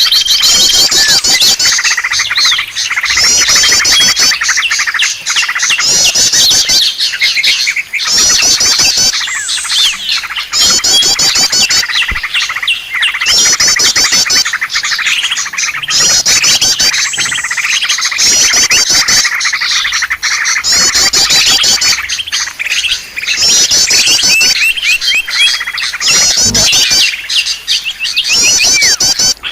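Dense, continuous chirping of many small birds, a bird-lure recording of noisy small birds used to draw wild birds in. Fast, high-pitched trills recur every couple of seconds over a busy mix of shorter calls.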